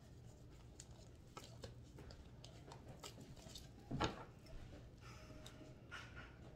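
Tarot cards being shuffled and handled by hand: faint soft flicks and rustles of card stock, with a louder thump about four seconds in.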